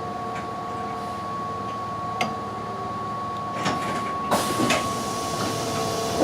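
Keihan 5000 series electric train running its last metres into the station, with a steady electrical hum made of several fixed tones. There are a few clicks, then a hiss of air starts about four seconds in and carries on.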